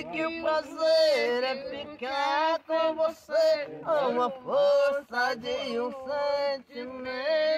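A man singing without accompaniment, long held notes that slide up and down between short breaths.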